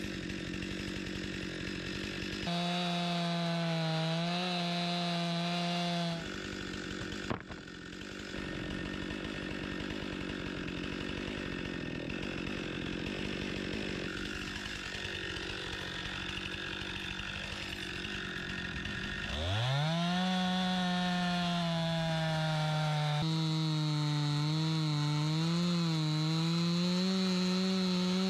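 Two-stroke chainsaw on a chainsaw mill ripping a trembling aspen log into one-inch boards. The saw runs at high revs under load, falls back to a lower, rougher running in the middle, then revs up steeply about nineteen seconds in and holds high, its pitch wavering as the bar works through the log.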